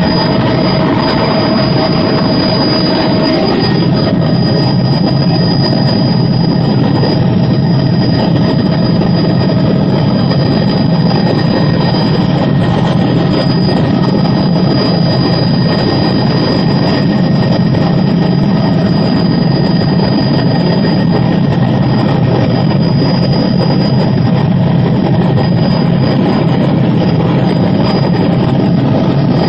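Helicopter in steady flight, its turbine engine and rotor making a loud, unbroken drone with a thin high whine on top, heard from inside the cabin.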